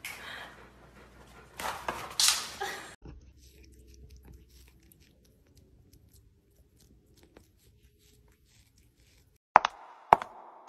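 A dog chewing and crunching raw carrots and spinach from a metal bowl for the first three seconds, then a long quiet stretch with only faint ticks. Near the end, a cat's paws crunch twice through snow, about half a second apart.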